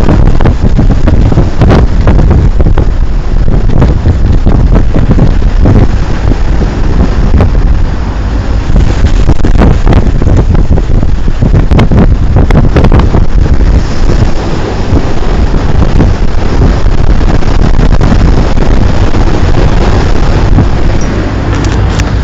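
Strong wind buffeting a phone's microphone, with a continuous rumble and irregular crackles, over the rush of a ship moving through rough sea.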